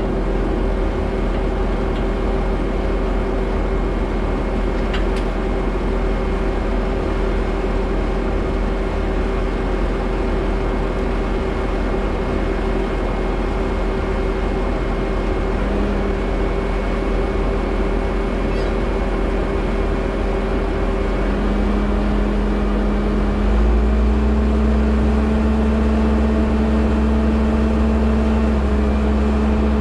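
Skid steer's engine running steadily. Its note steps up and grows louder about two-thirds of the way through.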